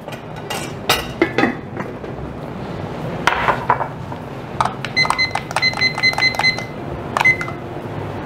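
An aluminium pot lid and pan clink and clatter as the simmering adobo is covered. This is followed by a quick run of short electronic beeps, about eight, and one more beep a moment later.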